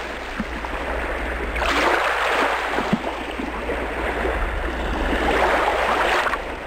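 A steady rushing noise that sounds like flowing water, swelling twice and softening near the end, over a low steady hum.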